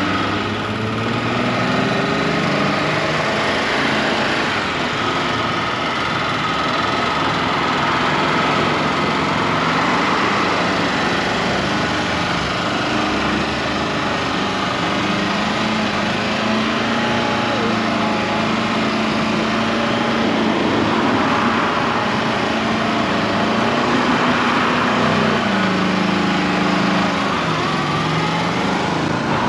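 Car engines running, with the engine note shifting up and down in pitch a few times as cars move off.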